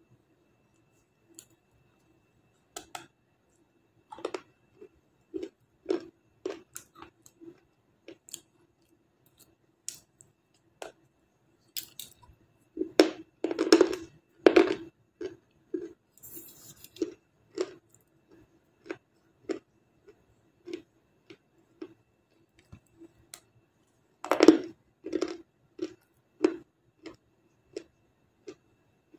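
Close-up chewing of dry, brittle 'black star' edible clay, crunching steadily about twice a second. Two louder runs of bites, a little before the middle and about five seconds before the end, come as fresh pieces are bitten into.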